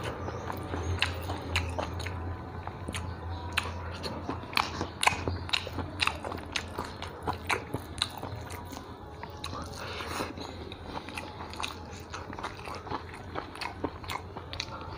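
A person chewing and crunching food close to a clip-on microphone, heard as a run of irregular crisp clicks and wet mouth sounds. A low steady hum sits under it, strongest in the first couple of seconds.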